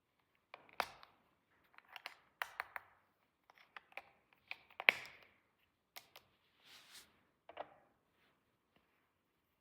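Small plastic toy pieces being handled and set down: scattered sharp taps and clicks, the loudest about five seconds in, with a brief rustle near seven seconds.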